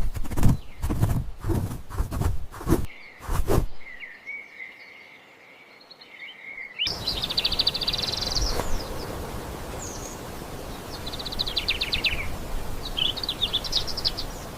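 A run of sharp knocks in the first few seconds. Then a field recording of a songbird over outdoor background hiss: several bursts of rapid high trilled notes, one dropping in pitch.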